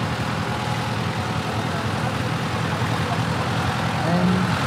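Fortschritt ZT 303-A tractor's four-cylinder diesel engine running steadily as the tractor drives slowly past. A faint voice comes in briefly near the end.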